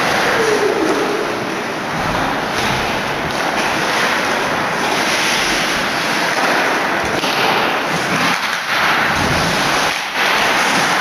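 Loud, steady crowd noise from hockey spectators cheering and shouting, dipping briefly twice near the end.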